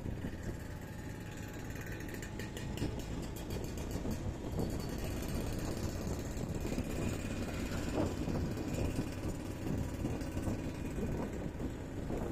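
A small motorbike's engine running steadily while riding through traffic at low speed, with wind and road noise on the microphone. A run of light, rapid ticks comes about two to four seconds in.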